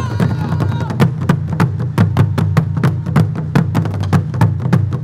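Korean drum ensemble, janggu hourglass drums and other barrel drums, struck with sticks in a fast, driving rhythm of sharp strikes with regular louder accents.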